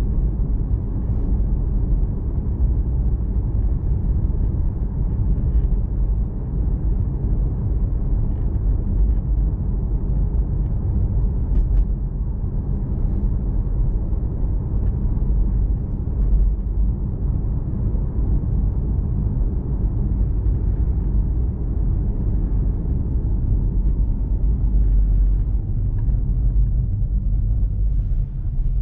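Steady low rumble of tyre and road noise heard inside the cabin of a 2020 Tesla Model 3 Performance on the move, with no engine note since the car is electric.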